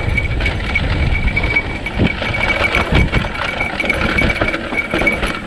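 Mountain bike riding fast down a dry dirt trail: a steady rumble of tyres on the dirt and wind on the camera, with rattling over bumps, a couple of harder knocks about two and three seconds in, and a steady high-pitched whine.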